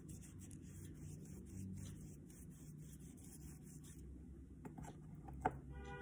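Paintbrush strokes rubbing and scratching across paper as poster colour is blended, a faint repeated rasping. A sharp click about five and a half seconds in, and music starts right at the end.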